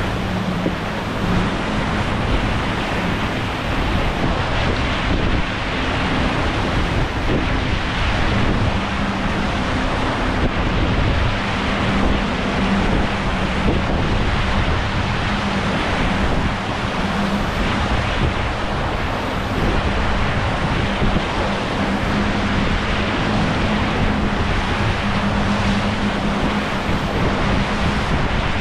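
Water rushing along the hulls of a Dragonfly 25 trimaran sailing fast, with wind buffeting the microphone and a steady low hum underneath.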